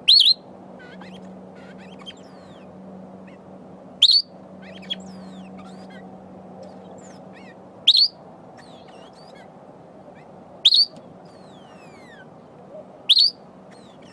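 Sombre greenbul calling: five loud, short, sharp calls a few seconds apart. Faint descending whistles from other birds between them.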